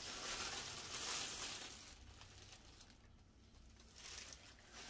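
Faint rustling of plastic snack wrappers for about the first two seconds, then near quiet.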